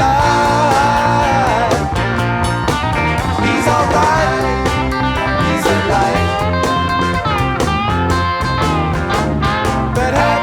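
1971 rock band recording playing: electric guitar, bass and drums with a steady beat, under a lead line that bends up and down in pitch.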